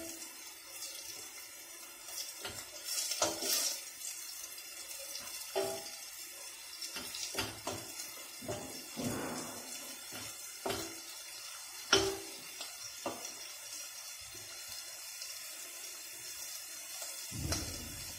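Tomato paste sizzling in hot oil in a stainless steel pot, a steady hiss, as a wooden spoon stirs and scrapes it, with irregular knocks that make the pot ring, the sharpest about twelve seconds in.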